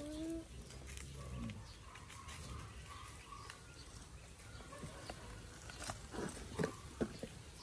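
A baby monkey climbing onto a small plastic chair and jumping off it, giving a few sharp knocks near the end. A short rising call at the very start and faint animal calls in the yard are also heard.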